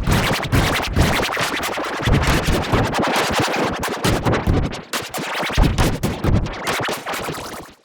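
Loud, harshly distorted remix music, chopped into rapid stutters like record scratching. It cuts out briefly right at the end.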